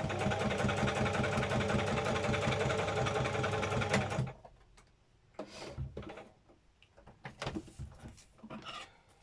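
Electric sewing machine running fast and steadily, stitching ribbon onto a paper journal page, for about four seconds before stopping suddenly. After it, a few light clicks and knocks from handling.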